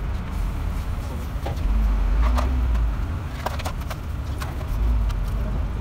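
A steady low rumble under scattered light clicks and knocks of a truck gearbox housing and its parts being handled and wiped with a rag in a steel basin.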